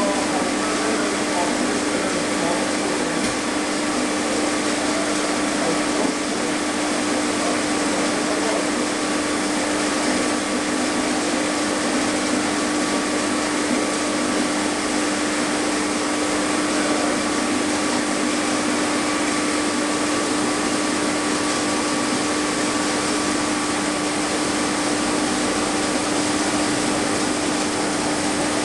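Small water turbine and its belt-driven electric generator running steadily: a constant whirring rush with a steady mid-pitched tone running through it.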